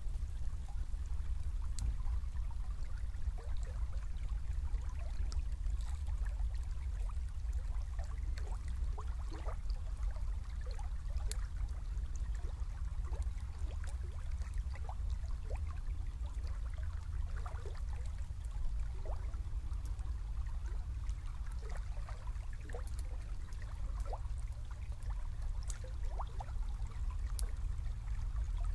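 Small river flowing: water trickling and gurgling with many small bubbling sounds over a steady low rumble.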